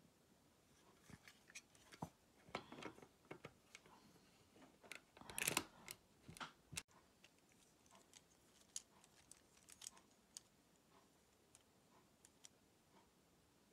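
Faint clicks and taps of LEGO bricks and Technic parts being handled and pressed together, busiest between about two and seven seconds in, loudest around five and a half seconds, then sparser small ticks.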